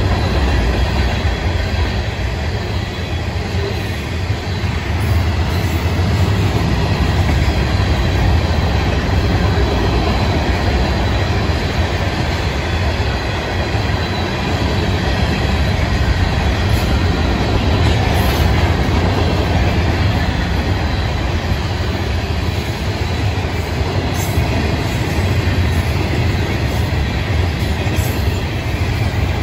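Florida East Coast Railway freight cars (covered hoppers, tank cars and ballast hoppers) rolling past at steady speed: a continuous low rumble of steel wheels on rail, with a few sharp clicks.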